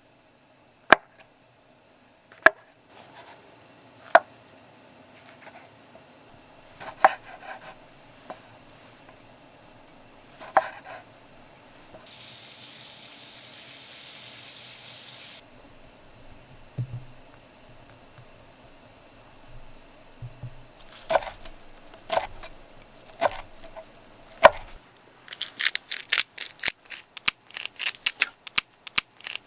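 Crickets chirping steadily, with sharp single knocks every few seconds and a fast run of clicks near the end.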